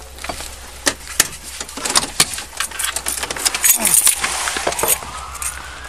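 Police officer getting out of a patrol car with the body camera worn on his chest: the car door opens, a series of sharp clicks and knocks sounds, and clothing and duty gear rustle right against the microphone.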